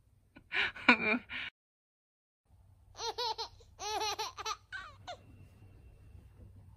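A woman laughing: a short burst about half a second in, then the sound cuts out completely for about a second. A longer run of quick, repeated giggles follows, about three seconds in.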